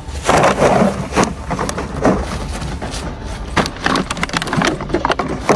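Woven plastic sack of trash crinkling and crackling as it is grabbed and rummaged through, with many short crunches and clicks.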